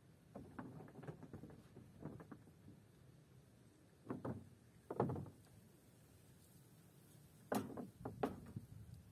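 Knocks and thumps of gear being handled and set down in a small flat-bottomed boat. There is a cluster of light knocks in the first couple of seconds, then single heavier thumps about four and five seconds in, the second the loudest, and two more near the end.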